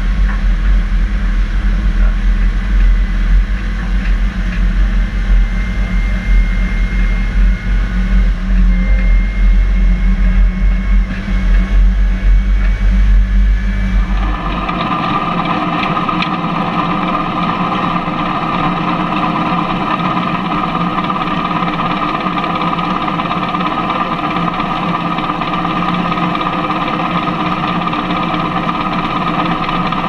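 Tractor-towed grain trailer on the move, heard as a rough, uneven low rumble. About halfway through it cuts to a John Deere T560i combine harvesting, its header and machinery running with a steady, even whine.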